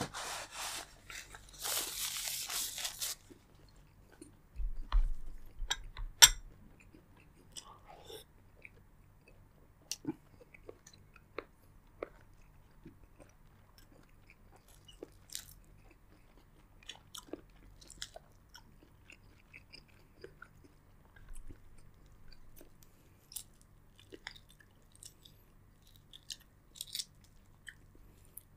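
Close-miked eating of seafood boil: a few seconds of dense crunching at the start, two louder knocks about five and six seconds in, then scattered small clicks and smacks of chewing.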